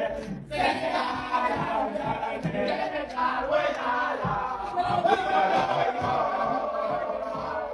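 A group of men singing and chanting together in celebration, with a brief break about half a second in.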